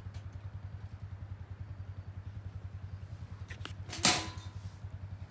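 An engine idling steadily, an even low throb with rapid regular pulses. About four seconds in, a short loud clatter.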